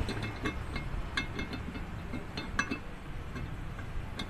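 Light metallic clinks and taps, a dozen or so at irregular intervals, as parts of a truck's fuel water separator are handled and worked on by hand.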